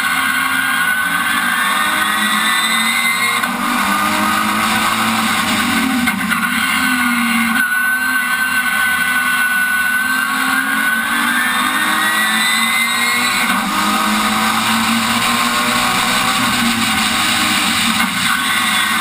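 Rallycross car's engine heard on board, running hard and climbing in pitch under acceleration, with a sudden drop at a gear change about three and a half seconds in and again about two-thirds of the way through. Between them the engine note sags as the car slows for a corner, then steadies and climbs again.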